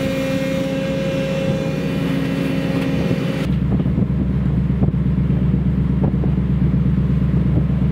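Steady machinery hum with held whining tones while the rescue boat hangs on its davit wire. About three and a half seconds in it switches abruptly to a deeper, louder steady drone.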